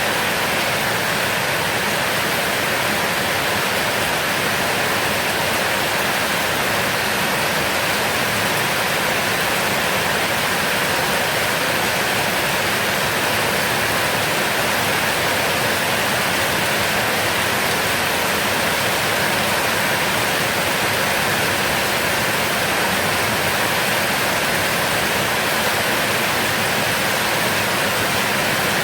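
Heavy rain falling steadily, a dense even hiss with no breaks or thunder.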